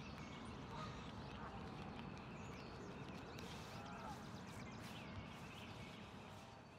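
Outdoor ambience: steady low background noise with a few faint bird calls and chirps, fading out near the end.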